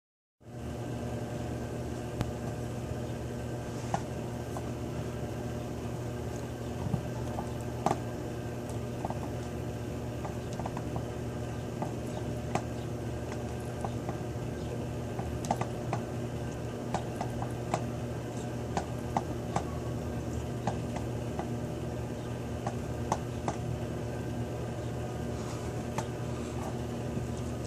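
Steady low mechanical hum with a few level tones in it, broken by scattered light clicks and ticks.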